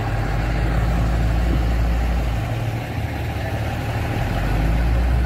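Heavy truck engine idling steadily, with a low drone that dips briefly about halfway through.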